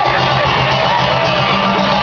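Live rock band playing loud, with distorted electric guitar over sustained low notes.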